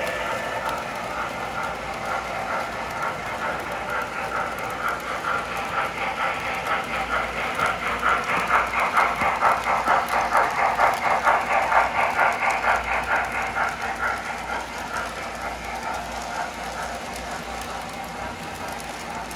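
O gauge model trains running on the layout track: a steady rhythmic clatter of wheels and rails. It builds as a train passes close, is loudest a little past the middle, and fades toward the end.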